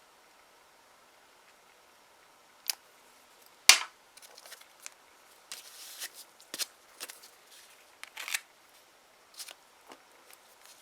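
Small clicks, taps and a short scrape from handling nail stamping tools (plate, scraper, stamper and polish bottle) on a table. A sharp click a little under four seconds in is the loudest.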